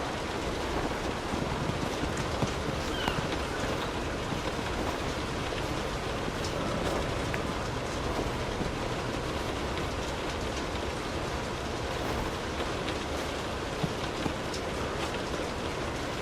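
Light rain falling on a car, heard from inside the cabin: a steady hiss with scattered sharper drop ticks.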